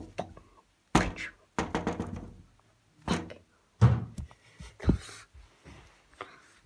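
A string of dull knocks and thuds, one at a time and then a quick cluster, with the heaviest thud about four seconds in.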